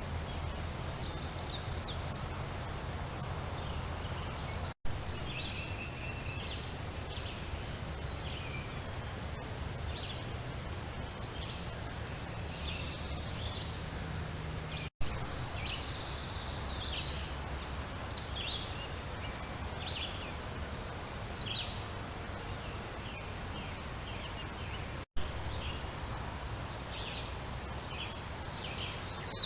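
Birds chirping and calling in short, repeated notes over a steady low background rumble, with brief total dropouts of the sound about every ten seconds. A louder run of chirps comes near the end.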